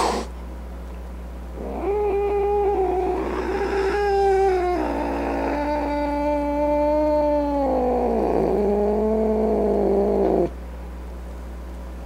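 A grumpy cat giving one long, drawn-out yowl of about eight seconds. It starts about two seconds in, drops in pitch in two steps, wavers near the end, and cuts off sharply.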